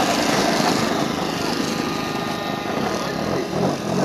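Radio-controlled model airplane's engine running steadily at low power on the ground after landing.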